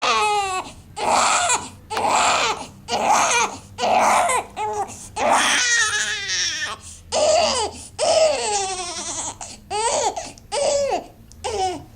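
A baby crying, a string of a dozen or so pitched cries about one a second.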